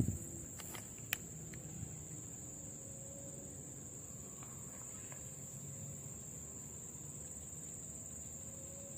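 Insects trilling steadily at one high pitch, with a couple of sharp clicks about a second in.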